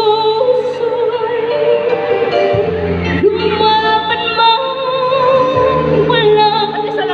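A female vocalist singing live into a microphone through a PA, holding long notes with vibrato over instrumental accompaniment.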